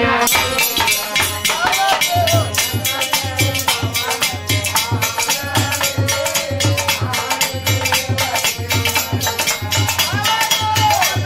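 Live folk bhajan: harmonium and a man's singing voice over a steady metallic rattling percussion. A low drum beat comes in about two seconds in, about twice a second.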